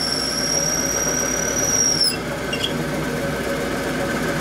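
Metal lathe drilling out a graphite rod, with a fume extractor running. A steady high whine dips slightly in pitch and stops about two seconds in, while a steady machine hum carries on.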